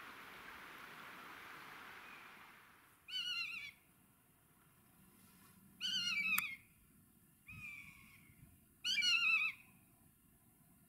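Common buzzard (Buteo buteo) calling for a mate in flight, giving four drawn-out, slightly falling mewing calls about one to three seconds apart, the third one fainter. A steady hiss is heard before the first call and stops about three seconds in.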